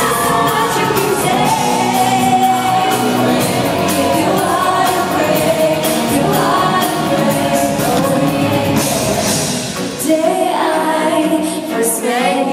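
Live pop song performance: singing over band accompaniment, recorded in a large hall.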